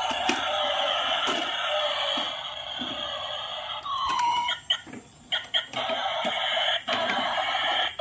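Battery-powered light-up toy tanker truck playing its electronic sound effects through a small built-in speaker, a harsh, buzzy noise that breaks off for about a second partway through and then comes back.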